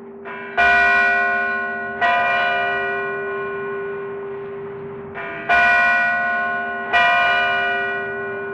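Large bell struck four times in two pairs, each pair about a second and a half apart. Each stroke rings with many overtones and fades slowly, and a low hum tone sounds on beneath the strokes.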